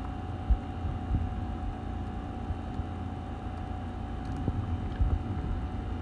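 Steady low room hum with a few faint steady tones above it, broken by a handful of short soft knocks, the most distinct about half a second in.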